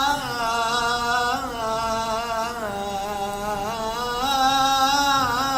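A man's voice singing Arabic poetry in a chant-like style, drawing out one long ornamented note that wavers and bends, dipping in pitch about halfway and rising again near the end.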